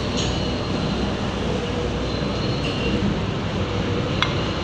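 Omelette-making robot machine running with a steady mechanical hum and rumble, with a few light clicks and clinks and a brief high tone partway through.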